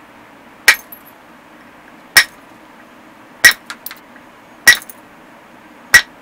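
Antler billet striking a metal-tipped punch set on the edge of an obsidian slab, indirect percussion to flake the end of the slab: five sharp clinking strikes about a second and a quarter apart, with a couple of faint small clicks after the third.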